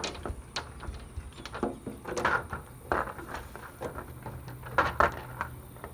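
An irregular run of short scrapes, taps and rustles, loudest about two seconds in and again near five seconds in.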